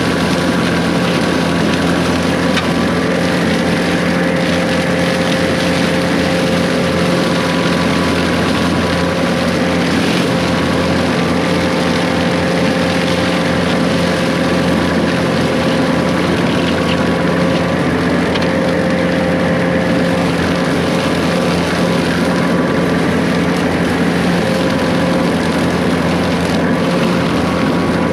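Case 140 excavator's diesel engine running steadily at a constant speed, with a few steady whining tones over the engine note.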